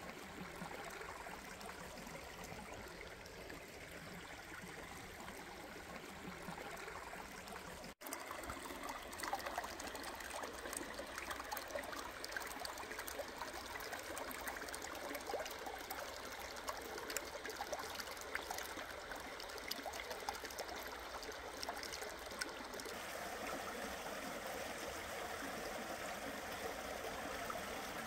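A small woodland stream trickling and babbling over rocks, a steady rush of water. It cuts out briefly about eight seconds in and comes back louder, with many small splashes.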